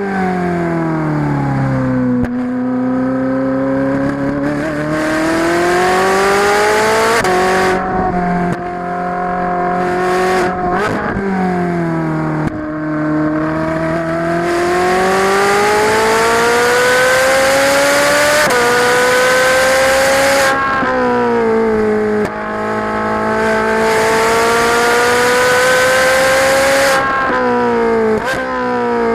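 Ferrari 458's 4.5-litre V8 heard onboard at track pace: the engine note climbs steadily under acceleration and drops sharply at each upshift, then falls in pitch as the car slows for corners, several times over.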